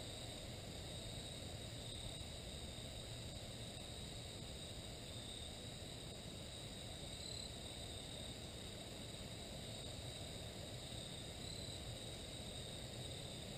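Steady high-pitched insect chorus, an even trill that barely changes, over a low rumble of light wind.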